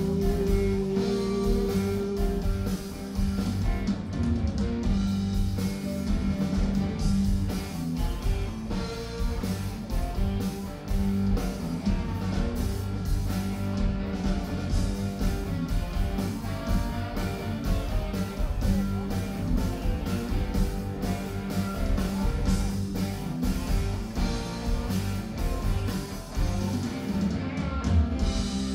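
A live rock band playing: electric guitars over bass guitar and a drum kit, with a steady beat.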